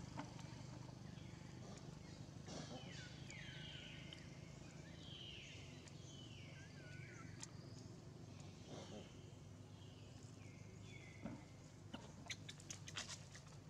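A monkey squealing: a string of faint, high-pitched cries, each falling in pitch, repeated every second or so, with a quick run of clicks near the end.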